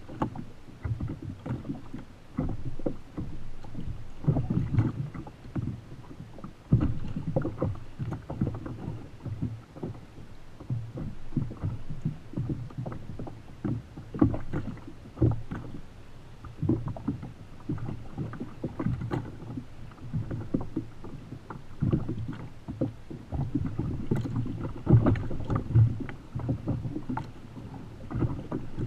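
Choppy sea water slapping and splashing against a Feel Free Lure 13.5 fishing kayak's plastic hull, with frequent irregular knocks and bumps.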